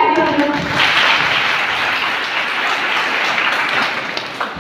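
Audience applauding: dense, even clapping that starts about a second in, as a woman's voice on a microphone ends, and slowly thins toward the end.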